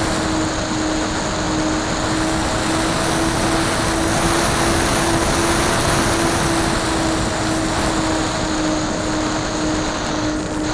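Radio-controlled model airplane's motor and propeller heard from onboard at a steady, even pitch, under a constant rush of air over the camera's microphone that grows louder midway.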